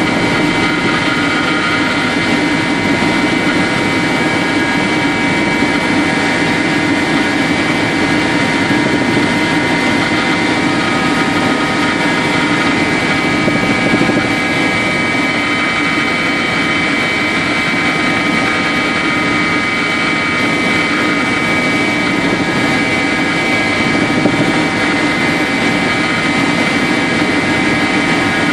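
Tour helicopter in flight, heard from inside the cabin: a loud, steady drone of engine and rotor with a constant high whine over it.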